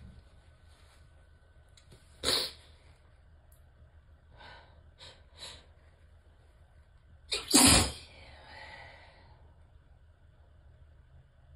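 A woman sneezing uncovered during a sneezing fit: one sharp sneeze about two seconds in and a louder one near eight seconds, with a few quiet short breaths between them.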